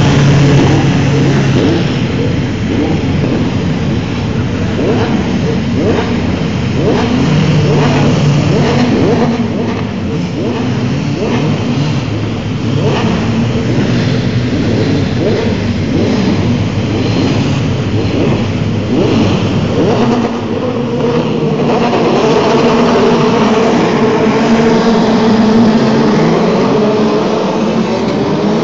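Several formula race car engines revving on the starting grid, with many quick up-and-down blips of the throttle overlapping. Near the end the engine notes grow steadier and overlap into a continuous drone.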